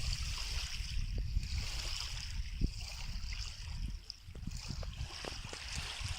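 Small sea waves washing and trickling at the shore, a steady hiss, with a low gusty rumble and a few faint ticks over it.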